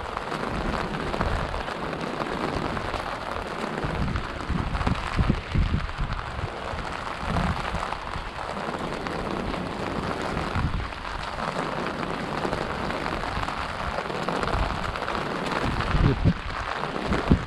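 Heavy tropical-storm rain falling in a steady downpour, with irregular gusts of wind buffeting the microphone and a few louder jolts about five seconds in and near the end.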